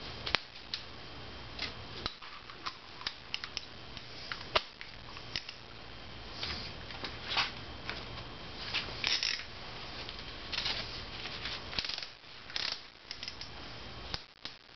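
Irregular light clicks and short rustles of hand tools being handled at a motorcycle workbench.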